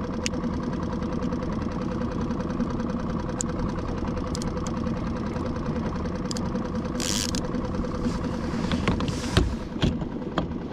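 Skiff's outboard motor running steadily at low speed. There is a short hiss about seven seconds in, and two sharp knocks near the end.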